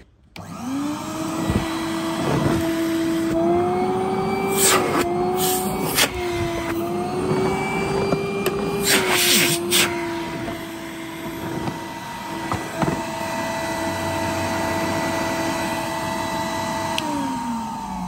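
1993 Numatic Henry vacuum cleaner switched on, its motor spinning up within the first second and then running steadily. In the middle its pitch rises and dips a few times, with a few short rushing bursts. Near the end it is switched off and winds down. The motor is rusty on the outside but sounds fine to the owner.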